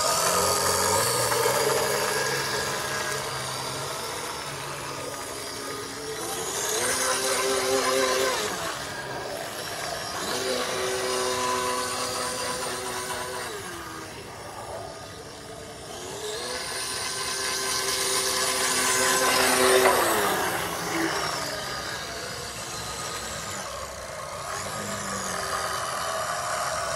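Motor of a Robbe radio-controlled catamaran racing boat running on the water, its pitch repeatedly climbing as the throttle opens and sinking as it eases off; the last and loudest run comes about three-quarters through.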